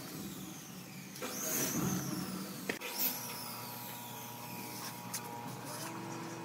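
Steel trowel scraping and smoothing wet cement mortar, in two strokes with a falling hiss, and a short click between them.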